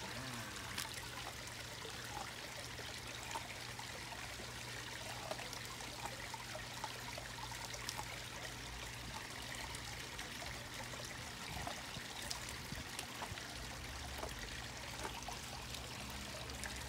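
A golden retriever nibbling kernels off a corn cob: scattered faint clicks and crunches of teeth, over a steady background hiss.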